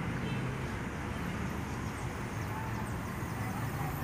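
Steady low background rumble of outdoor ambient noise, with no distinct events.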